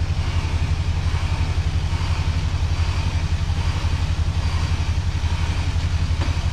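Off-road 4x4's engine idling steadily, a low, even throb.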